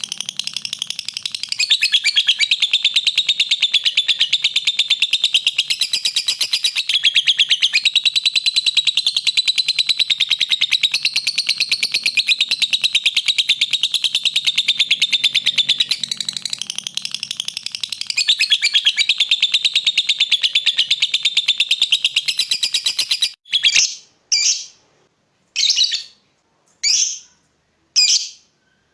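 Lovebird singing a long, rapid, unbroken chattering trill, the drawn-out 'ngekek' song, for about 23 seconds, then breaking off into separate sharp chirps about one a second.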